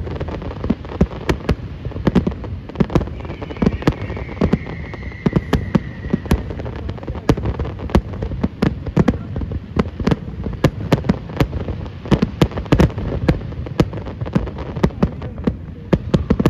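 Fireworks display: a rapid, unbroken barrage of aerial shell bursts, several sharp bangs and cracks a second.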